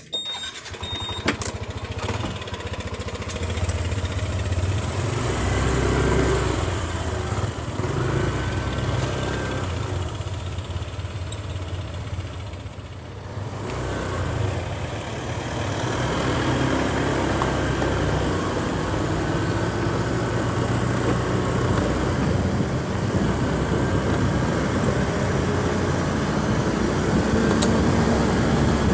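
A motor vehicle on the move: its engine running steadily under heavy low road rumble and wind noise. The sound eases off briefly about halfway through.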